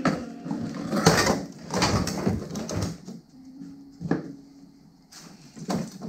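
Irregular knocks, scrapes and rattles of a canister vacuum cleaner and its hose being dragged about and a person climbing into a stripped car body shell. The loudest clatter comes about a second in and again around two seconds in, with a single sharp knock just after four seconds.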